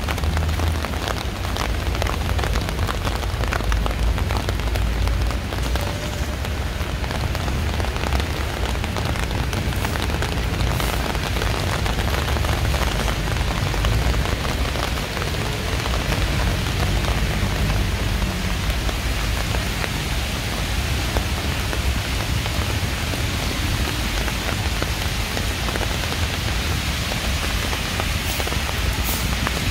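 Heavy downpour: a dense, steady rush of rain with many single drops ticking through it.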